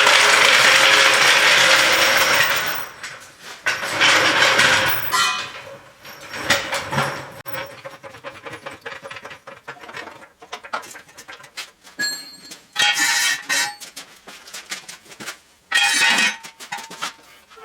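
Workshop work noises: a loud rushing, scraping noise for the first couple of seconds and again briefly about four seconds in, then scattered metal clanks and clicks, with short ringing metallic tones near the end.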